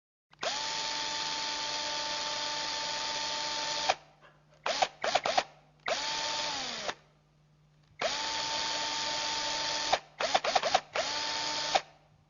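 Electric power drill run at a steady high speed for a few seconds, then released, followed by a quick series of short trigger blips and a brief run whose pitch falls as the motor spins down. The same sequence plays twice.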